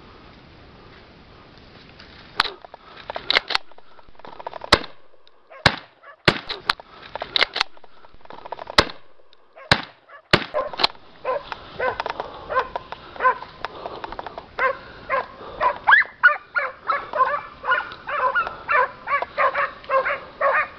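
Hunting hounds barking on a wild boar's track. At first there are scattered sharp single barks. From about 11 seconds in the barks become a rapid, continuous baying chorus as the pack runs the boar.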